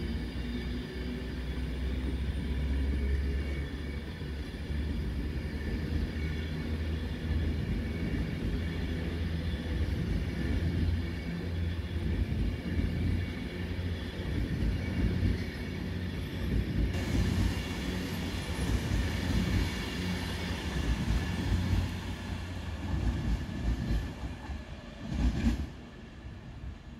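A train running at the station: a steady deep rumble with a constant high whine over it. About 25 seconds in there is a brief louder surge, then the sound drops away.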